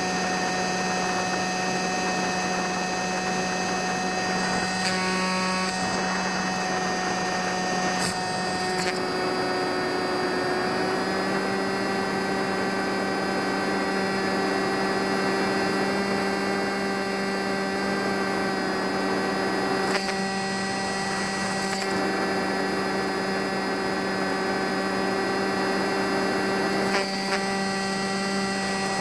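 Brushless electric motor and propeller of a foam RC ultralight model whining steadily in flight, heard from its onboard camera. The pitch steps up slightly about a third of the way in, with a few brief crackles.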